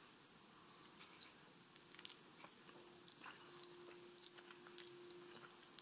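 Very faint eating sounds: a fork twirling spaghetti against a plate and a mouthful being chewed, heard as small scattered clicks. A faint steady hum comes in about halfway.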